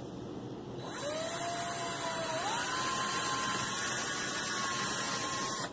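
Cordless drill whining as it bores a pilot hole through a thin palm-frond stick. It starts about a second in, climbs in pitch, steps up to a higher speed about halfway, holds steady, then cuts off suddenly.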